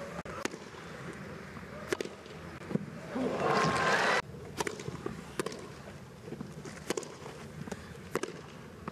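Tennis racket strikes on the ball during a grass-court rally, sharp single hits under a second apart. About three seconds in comes a short swell of crowd noise that cuts off suddenly.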